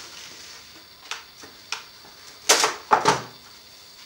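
Plastic cling wrap being pulled off its roll: a few light clicks, then two loud crinkling pulls a little past halfway.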